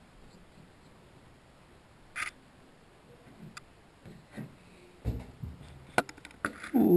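Scattered light clicks and knocks of handling as a plastic shower valve cartridge is worked into the valve body by hand. The clicks come closer together in the last two seconds, and a short falling squeak comes right at the end.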